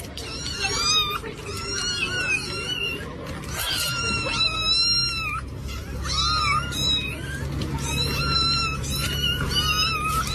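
A cat meowing repeatedly: a series of about six high-pitched, drawn-out calls that bend up and down in pitch.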